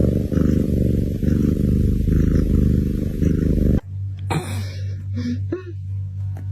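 Sleeping cat's loud, rumbling purr, swelling and easing with each breath about once a second. About four seconds in it cuts off abruptly, giving way to a steady low hum with a few short squeaky sounds.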